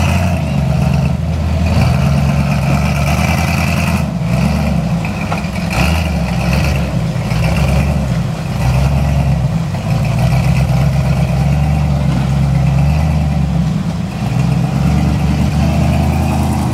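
Built 350 cubic-inch V8 of a rock-crawling truggie running at crawling speed, its note rising and falling as it is revved to climb over boulders.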